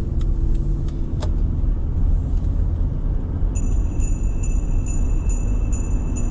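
Steady low road rumble of a car driving, under background music; from about halfway, jingle bells shake in a steady rhythm about twice a second.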